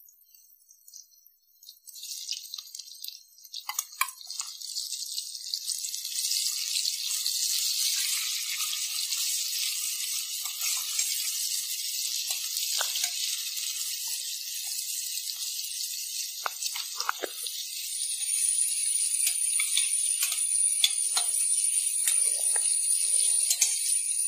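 Sliced onions sizzling in hot oil in a steel pan, the hiss starting about two seconds in as they hit the oil. A steel spatula scrapes and clinks against the pan now and then as they are stirred.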